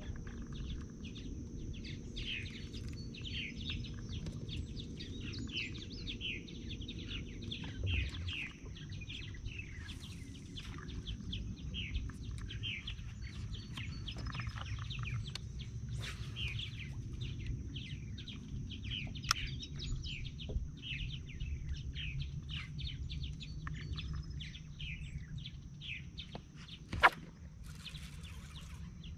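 Birds chirping continuously, a fast run of short falling chirps several times a second, over a steady low rumble. There is a single sharp click near the end.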